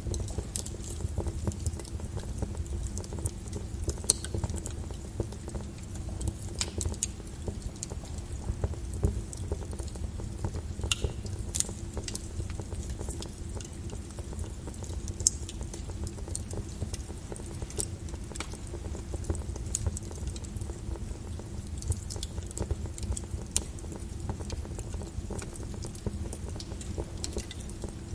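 Wood fire crackling, with irregular sharp pops every second or so, over a steady wash of rain and a low rumble.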